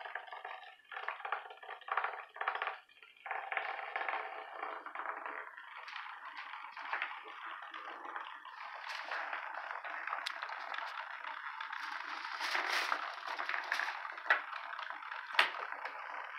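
Hexbug vibrating robot toy buzzing and rattling across a hardwood floor, in short stop-start bursts at first and then more steadily, with a couple of sharp clicks near the end.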